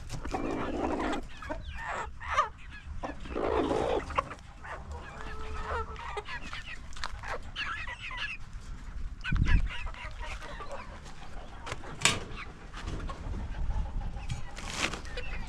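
A flock of chickens clucking and calling, many short overlapping calls, with a dull thump about nine seconds in and a couple of sharp knocks near the end.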